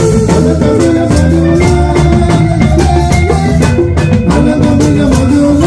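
Loud music with a steady drum beat under a pitched melodic line.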